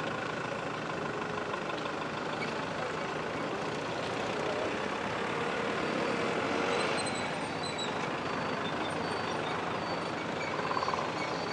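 Steady outdoor road traffic noise, swelling slightly as a vehicle passes about six to seven seconds in.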